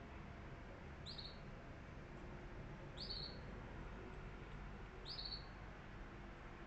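A bird chirping: a short, high chirp three times, about two seconds apart, over faint low background noise.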